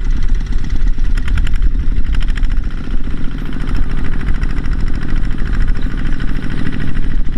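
Two-wheel walking tractor's single-cylinder diesel engine running under load with a fast, steady chugging, hauling a trailer piled with rice sacks; it grows a little louder and higher between about four and six and a half seconds in.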